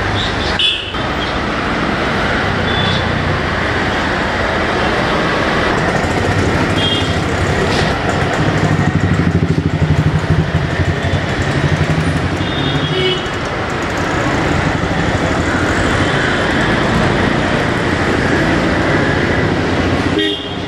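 Street traffic noise: a steady rumble of passing motor vehicles, with one engine louder for a few seconds from about eight seconds in.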